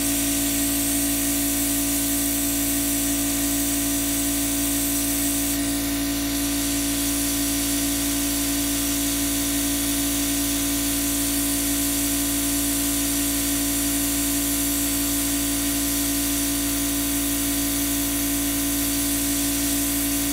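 Hot-air rework tool running, blowing hot air through a small nozzle onto a surface-mount part to melt its solder: a steady hiss of air with a constant hum under it.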